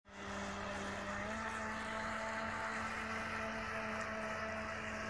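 Radio-controlled jet boat's motor and water-jet drive running steadily: a whine over a hiss, stepping up slightly in pitch about a second in.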